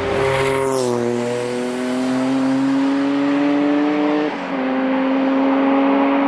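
Porsche 962's twin-turbo flat-six engine as the car drives past, its pitch falling. It then pulls away with revs rising, and there is a brief gear change about four seconds in.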